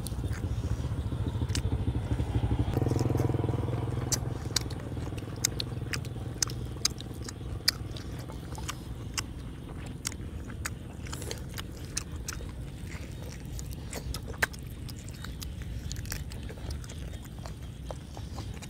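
Eating sounds from boiled pig's head meat being bitten, chewed and pulled apart by hand: many short sharp clicks and smacks. Under them runs a steady low motor hum, loudest in the first four seconds and then fading.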